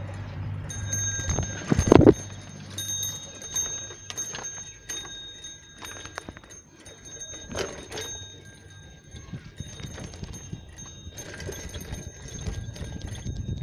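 Bicycle rolling over a bumpy dirt and stone path: the bike rattles and ticks unevenly, the handlebar bell ringing faintly as it is jolted, with a heavier thump about two seconds in.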